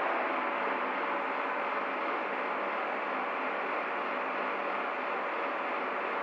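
Steady road-traffic noise from a city street, easing slightly over the first couple of seconds as a minibus taxi drives away.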